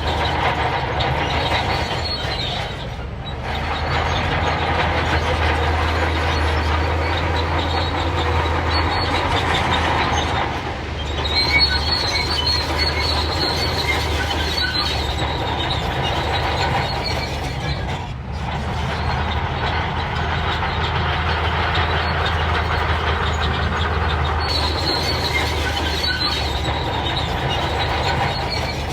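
Crawler bulldozer at work: a steady diesel engine drone with steel tracks squealing and clanking, easing off briefly a few times.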